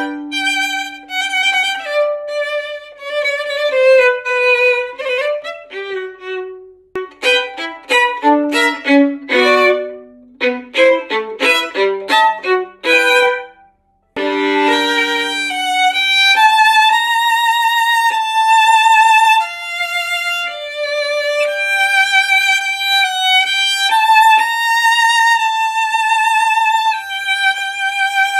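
Solo violin strung with DYNAMO SOLO strings, played unaccompanied: a melodic phrase with vibrato, then a run of quick short notes and chords. After a brief break about halfway through come long sustained high notes with wide vibrato.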